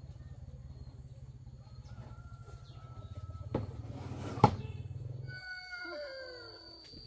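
A low, steady pulsing hum with two sharp knocks, the second the loudest, stops abruptly about five seconds in. A rooster then crows once, its call falling in pitch over about a second and a half, with a thin, steady high tone behind it.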